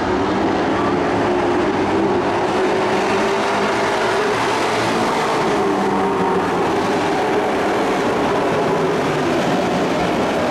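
Engines of a field of dirt-track racing pickup trucks running at speed around the oval: a steady, loud mix of engine notes that rise and fall in pitch as the trucks pass.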